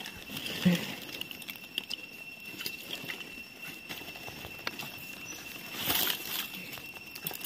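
Dry leaf litter rustling and crackling with small irregular snaps, as hands search the forest floor for mushrooms and pull one from the soil, with a louder rustle about six seconds in.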